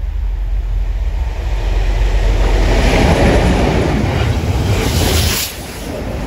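A Railhead Treatment Train hauled by Class 56 diesel locomotives passing close by: a rushing rumble that swells to its loudest around three seconds in and drops off sharply near the end. Wind buffets the microphone.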